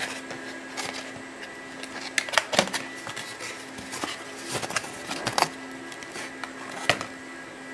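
Irregular sharp plastic clicks and taps as an iPhone 3G and its plastic case are handled on a table. A steady hum runs underneath.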